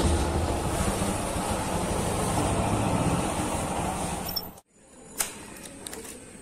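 Motorcycle engine running at low speed, cut off abruptly about four and a half seconds in, then a single sharp click.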